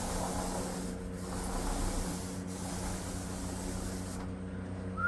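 Final coat of paint being applied to a wall: a rubbing hiss in repeated strokes, with a short break about every second and a half, that stops about four seconds in. A steady low hum runs underneath.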